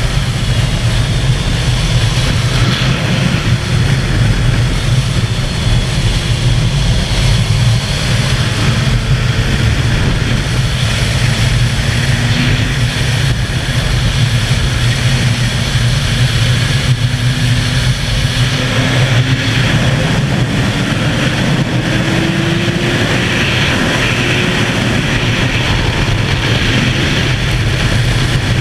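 Suzuki sports bike engine pulling at high road speed, buried in heavy wind rush on the microphone. Its pitch climbs a little past the middle as the bike accelerates.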